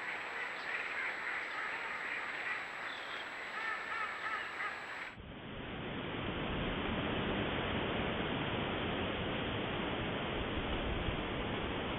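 Ducks quacking, a run of repeated short calls, cut off suddenly about five seconds in. A steady, even rushing noise with no calls follows.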